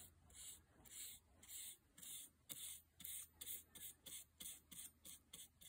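Faint, quick swishes of a layout-fluid brush stroking back and forth across a flat steel bar, coating it in machinist's blue for marking out. The strokes come about twice a second at first, then speed up to about three a second.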